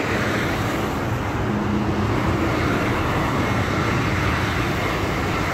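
Twin-engine jet airliner flying low on final approach: a steady engine rumble with a faint whine above it.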